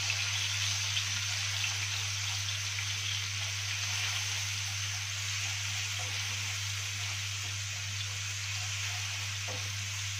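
Minced garlic sizzling steadily in hot fat in a frying pan, stirred with a wooden spatula, as it is fried toward golden.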